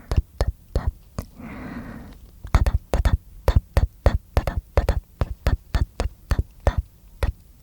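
Close-miked mouth sounds: a steady run of sharp tongue clicks and pops, about three a second, broken about a second and a half in by a short wet, breathy hiss.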